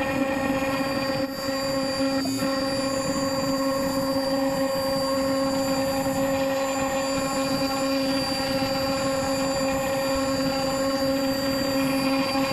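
CNC router spindle running at a steady pitch while an Amana Tools replaceable-tip V-bit engraves a fractal pattern into an oak board.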